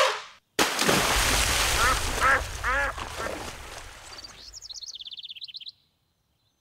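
Sound effect of a big splash into water: a sudden loud rush of water about half a second in that fades away over a few seconds. A duck quacks a few times as it fades, then a fast run of high bird chirps follows near the end.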